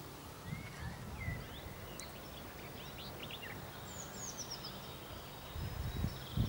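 Small birds chirping and whistling in short, scattered calls over a low outdoor rumble.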